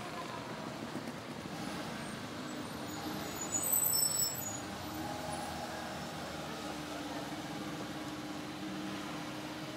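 Minibus engine running in street traffic as the minibus pulls away, settling into a steady hum from about five seconds in. A brief high-pitched squeal stands out about three and a half seconds in.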